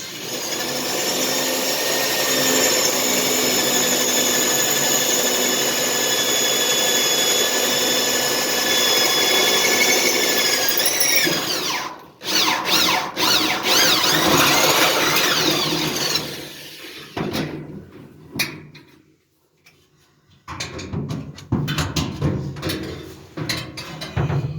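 Handheld electric power tool running with a steady high motor whine for about eleven seconds, then winding down. It starts again for a few seconds, then runs in shorter bursts with pauses.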